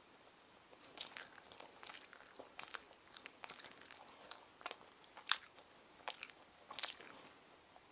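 A child chewing a soft sandwich with her mouth closed: faint, close-up mouth sounds, a string of small irregular clicks and smacks.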